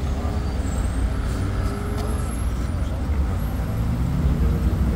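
Street traffic: vehicle engines running and passing, a steady low rumble.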